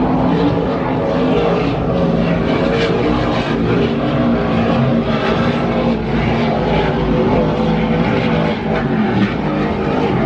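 Offshore racing powerboat engines running steadily as the boats lap the course, a continuous engine sound with a few held tones.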